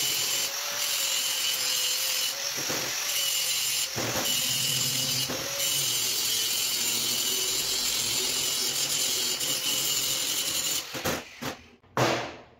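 Angle grinder cutting through a metal tube, a steady grinding whine with a slightly wavering pitch. It stops about two seconds before the end, followed by a few short knocks.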